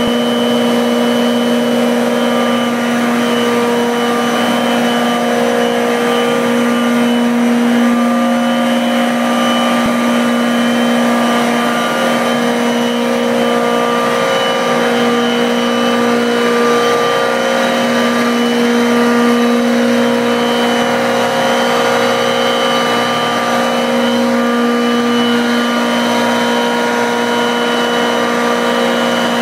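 Howden compressor on a chiller running steadily: a loud, even machine drone with a strong steady hum and a thin high whine above it.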